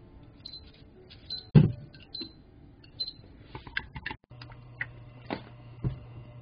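Chopsticks beating eggs in a metal bowl: irregular clicks and taps against the side of the bowl, quickening just before the sound cuts out about four seconds in. After that comes a steady low hum with an occasional tap.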